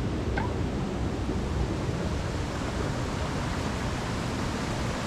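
Steady rush of a shallow mountain creek flowing over rocks below a waterfall, with a short rising chirp about half a second in.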